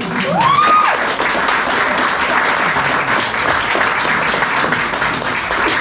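Audience applauding at the end of a talk, a steady crackle of many hands clapping. About half a second in, one person lets out a whoop that rises in pitch.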